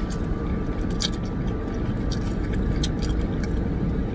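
A person chewing and slurping a mouthful of pad thai noodles, with short wet mouth clicks now and then, over a steady low hum inside a car cabin.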